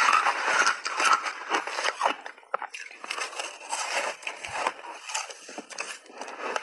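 Shaved ice being crunched and chewed in big mouthfuls right at a clip-on microphone, a dense run of irregular crisp crunches.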